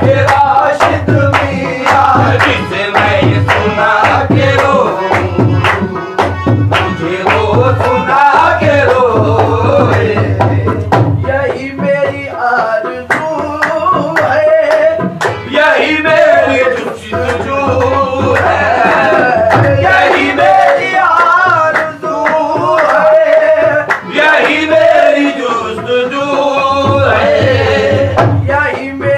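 Devotional qawwali-style singing: a male lead voice with harmonium, backed by hand-clapping and a steady drum beat.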